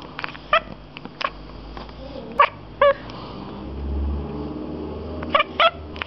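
Domestic cat chirping at seagulls seen through a window: about six short, clipped chirps, two of them close together near the end. This is the chattering that cats make when watching prey birds they cannot reach.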